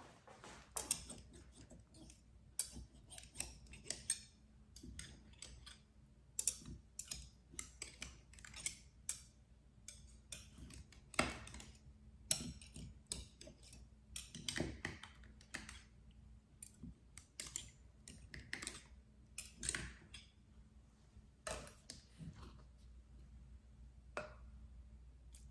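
Irregular light clicks and knocks of objects being handled in a kitchen, scattered through the whole stretch.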